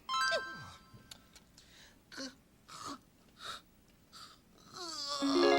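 Cartoon sleep sound effects: a short chord with a falling whistle-like glide at the start, a few faint ticks, then four short wheezy snoring breaths, each well under a second apart. Music rises near the end.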